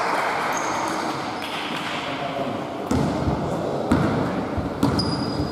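Basketball bouncing on a hardwood gym floor: a few separate thuds about three, four and five seconds in, over the general noise of play in the hall.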